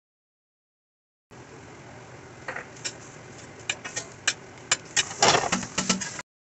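A metal utensil scraping and clinking against a stainless steel skillet as diced chicken is stirred, over a steady hiss. The sound starts about a second in, and the loudest clatter of scraping comes about five seconds in.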